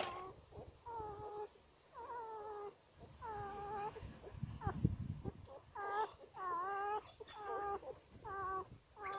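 Few-days-old newborn puppies crying in short, high, mewing squeals, about one a second, each bending in pitch, while they root about trying to suckle. A muffled rumble of handling comes about halfway through.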